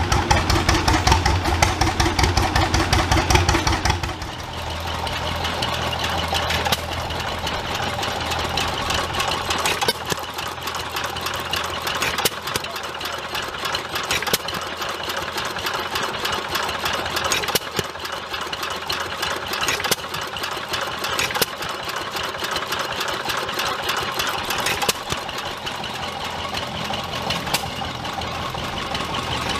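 Antique stationary engines running. For about the first four seconds a larger engine runs steadily with fast, even strokes. Then a smaller hit-and-miss flywheel engine ticks as it coasts, with a louder firing stroke every two to three seconds.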